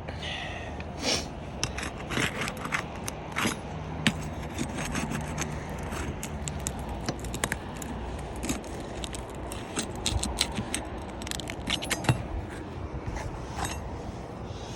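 Asphalt roof shingle being pried up: rough scraping with many irregular sharp pops and crackles as its sealed strip unseals.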